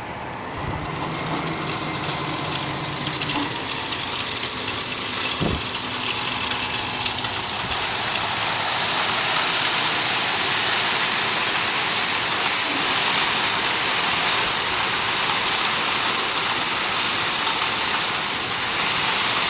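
Crushed stone sliding off a tipped dump truck bed and pouring onto the ground: a rushing hiss that builds over about eight seconds and then holds steady. A low hum from the truck runs under it in the first few seconds, and there is one sharp knock about five seconds in.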